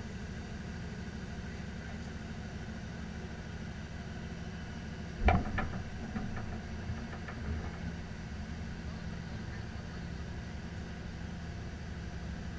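Tow truck engine idling steadily, with one sharp knock about five seconds in and a few lighter knocks after it.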